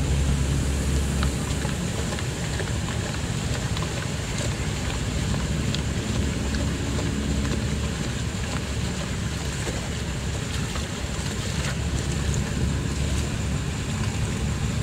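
Steady rushing of muddy water through a partly clogged culvert, with faint taps and scrapes of a stick probing the blocked opening.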